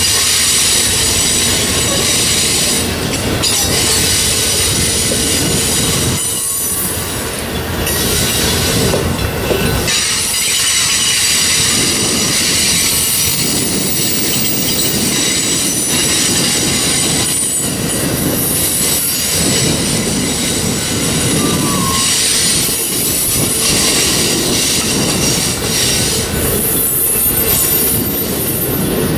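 Amtrak Superliner bilevel passenger cars rolling past close by: steady rumble of wheels on rail, with a high-pitched squeal from the wheels that holds through the passing and occasional clicks over rail joints.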